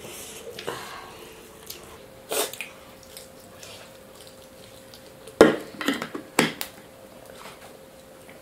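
Close-up eating sounds of people eating mutton biryani by hand: wet mouth smacks and slurps while chewing meat and rice. A short smack comes about two seconds in, and a louder cluster of them comes a little past the middle.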